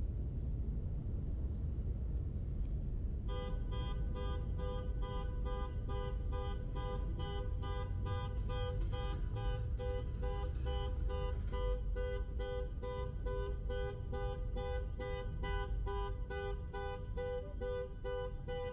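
A two-tone car horn sounding in short, evenly repeated blasts, about three a second, starting a few seconds in and keeping on without a break: the steady pattern of a car alarm going off. Low traffic rumble underneath.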